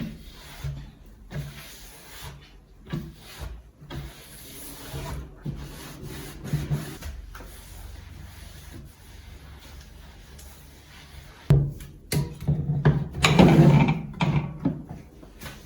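Irregular rubbing and scraping from hands-on kitchen work, with a sharp knock about eleven and a half seconds in and a louder stretch near the end.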